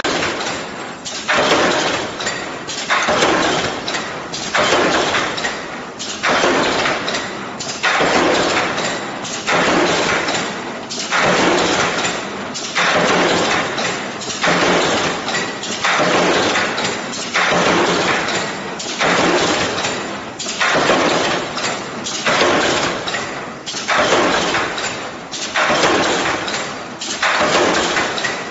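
Automatic metal saw blade attaching machine for foil and cling film carton boxes running in a steady cycle, a loud burst of mechanical noise about every second and a half as each box is processed.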